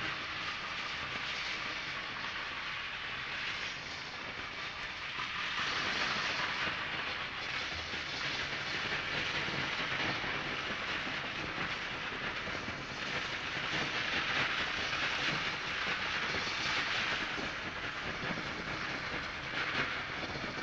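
Percussion in a live performance: a steady rattling, hissing wash, like shakers or cymbals played softly, that swells louder about six seconds in and again a few times after.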